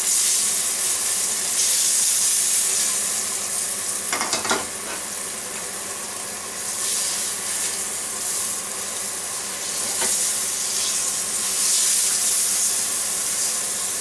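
Floured beef fillet sizzling as it browns in hot olive oil in a frying pan, the sizzle swelling and easing in waves. A brief knock about four seconds in.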